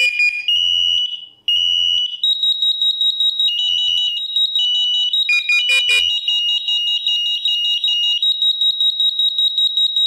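Several interlinked smoke, heat and CO alarms sounding together in a test: shrill piezo alarm beeps at different pitches overlapping. There are a few separate beeps at first, then from about two seconds in a higher, rapidly pulsing tone joins and runs on with the others layered over it. This is the whole interlinked group going off at once when one test is triggered.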